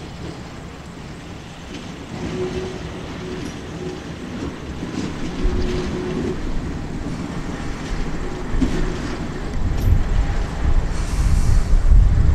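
A diesel locomotive runs light along the track, its engine rumbling as the wheels roll over the rails. A tone sounds briefly a few times. Near the end a louder rumble comes with wind buffeting the microphone.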